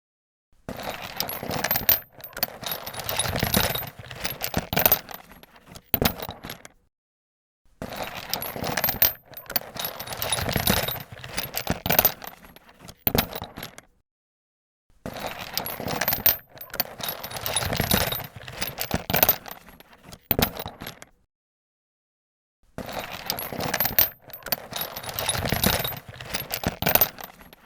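Metal hand tools clattering and clinking against one another, with many sharp metallic knocks and jangles. The same few-second sequence plays four times, each separated by a brief silence.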